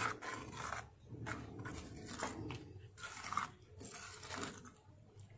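Metal spatula stirring and mashing thick, wet mustard-greens saag in a stainless steel kadai: repeated squelching, scraping strokes with short gaps between them, the spatula working down to the pan's bottom to keep the saag from sticking.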